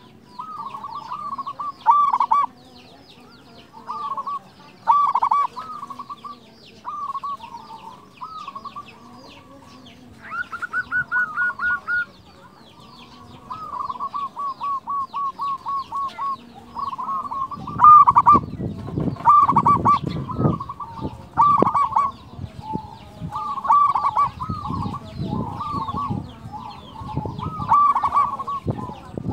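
Zebra dove (perkutut) singing: repeated short cooing phrases, with two quick even runs of staccato notes a little after ten and fourteen seconds in. From about eighteen seconds in, low rumbling bursts come in under the calls.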